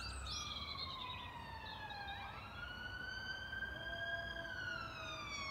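A faint emergency-vehicle siren wailing. Its pitch falls slowly for about two seconds, jumps back up, then falls slowly again.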